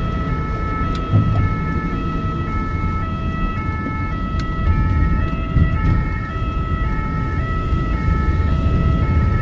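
An ambulance's two-tone siren, heard from inside its own cab, switches between a high and a low note about twice a second. It sounds over a steady high tone and the constant rumble of the engine and road.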